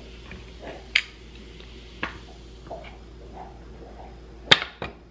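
A few sharp clicks and knocks of kitchen utensils being handled and set down on a countertop. The loudest comes about four and a half seconds in, with a weaker one just after it.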